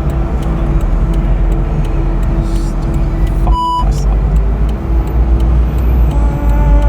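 Honda S2000's F22C1 2.2 L four-cylinder engine running steadily under way, with road rumble inside the cabin. About halfway through, a brief high tone cuts in while the engine sound drops out for a moment.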